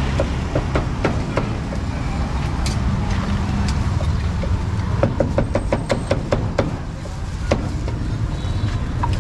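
Street ambience: steady low traffic rumble, with scattered sharp clicks and a quick run of them, about five a second, a little past the middle.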